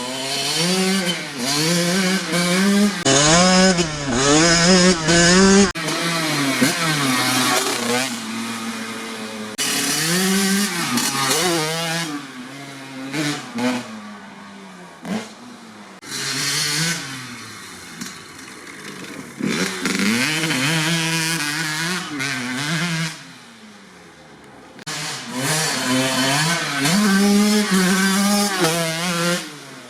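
1997 Kawasaki KX80's single-cylinder two-stroke engine revving, its pitch climbing and dropping again and again, with several abrupt breaks in the sound.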